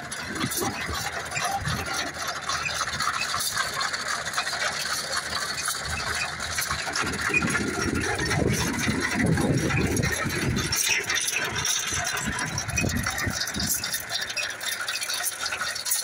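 Tractor engine running with a steady metallic clatter of rattling and clicking from the hitched Ransomes potato harvester's rod elevator and drive.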